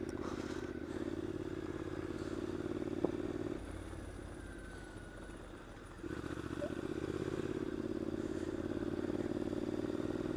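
A Triumph Scrambler's parallel-twin engine running at low speed, easing off for about two seconds in the middle and then pulling again, with a single sharp click about three seconds in.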